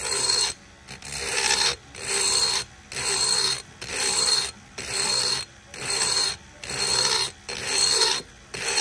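Carbide burr in a cordless rotary tool grinding the cast-aluminium port of a Predator 212 cylinder head in short sweeping strokes, about one a second, with the burr lifted off between strokes. This is hand porting: metal is taken off evenly so no humps are left in the port.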